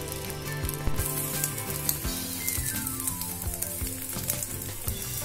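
Egg, vegetable and rice pancake frying in oil in a frying pan: a steady sizzle with scattered small pops, louder from about a second in, over background music.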